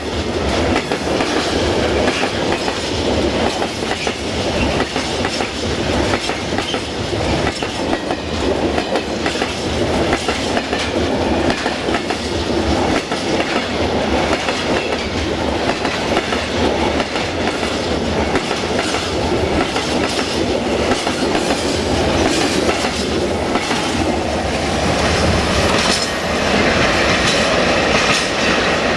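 Freight train tank wagons rolling past close by: a steady rumble of steel wheels on the rails, with the clickety-clack of wheels over rail joints.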